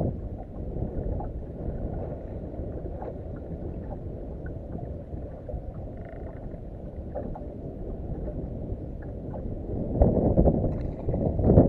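Wind buffeting the microphone over choppy water lapping at a boat's hull, a steady low rush that swells louder about ten seconds in.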